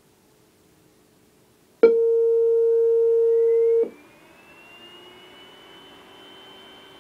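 A faulty Apple Macintosh being switched on: a click, then a loud steady beep that lasts about two seconds and cuts off abruptly. A quieter whine then rises in pitch and holds steady over a low hum, the sign of a machine that powers up but fails to start normally.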